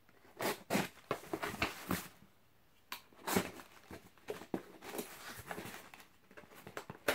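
Cardboard shipping box being opened: the packing tape is slit and a flap pulled apart, giving an irregular run of scratches, crackles and light taps, with a short quiet spell about two seconds in.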